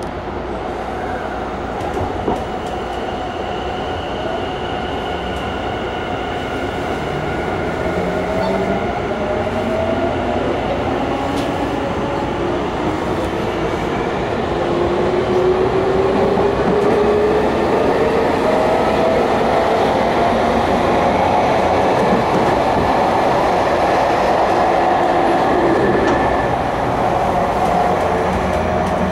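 Tobu 50000-series electric train pulling away and accelerating, heard from inside the passenger car. The VVVF inverter and traction-motor whine climbs steadily in pitch as the train gathers speed, over the wheel and rail noise.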